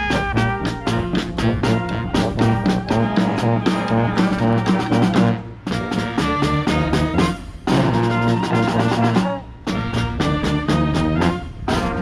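Street brass band playing a punchy, rhythmic tune: trumpets, trombone and sousaphone over a marching snare drum, with three short stops in the second half.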